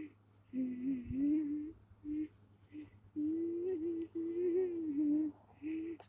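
A person humming a tune without words, in short notes and longer held phrases with gaps between.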